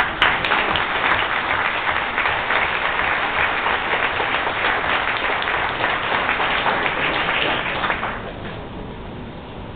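Crowd applauding, many hands clapping together; the applause fades away about eight seconds in.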